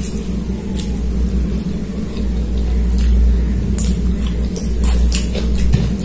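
Close-miked eating sounds: fingers mixing rice and curry on a plate and wet chewing, heard as scattered short clicks and squishes, over a steady low hum.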